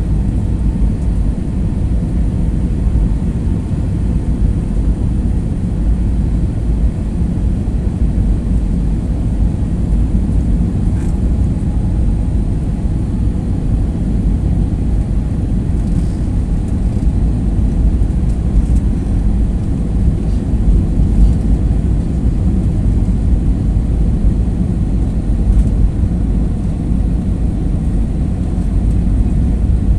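Steady, loud low rumble of an airliner cabin in flight, heard from a passenger seat during the descent before landing, with a faint high whine above it.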